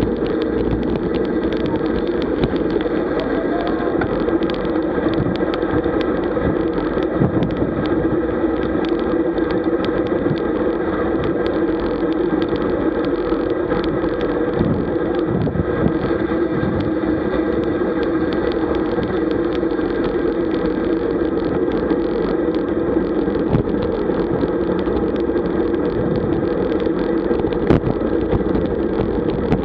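Steady, muffled rush of wind and tyre noise on a road bike's camera microphone while riding in a group at about 40 km/h, with scattered small knocks.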